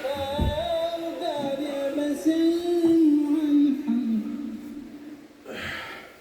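A voice singing a slow, wavering melody with long held, sliding notes that fade away, then a short breathy rush near the end.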